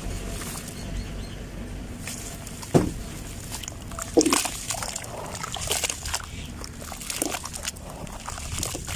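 Dry sand-cement clumps crumbling: scattered small crunches and crackles, with two sharp knocks about three and four seconds in.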